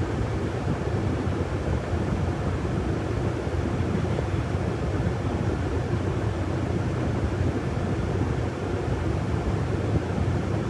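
City bus running, heard from inside the cabin near the rear: a steady low engine and road rumble.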